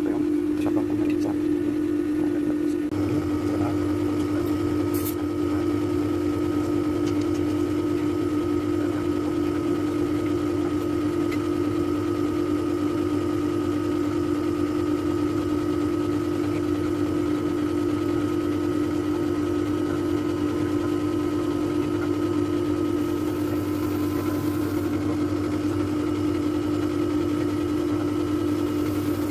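Outdoor unit of a Panasonic 1/2 PK split air conditioner running steadily with a constant hum, as the unit must run while R22 refrigerant is charged into it. A lower hum joins about three seconds in.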